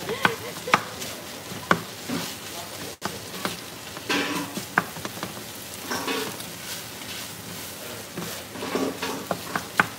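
Ground meat sizzling in a nonstick frying pan as a wooden spatula stirs it, with frequent sharp taps and scrapes of the spatula against the pan.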